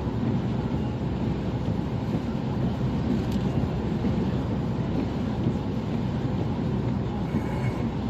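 Steady road and engine noise of a car driving along a motorway.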